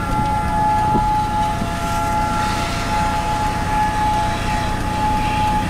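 Outdoor warning siren sounding one steady tone that swells and fades a little in loudness, over a constant low rumbling noise.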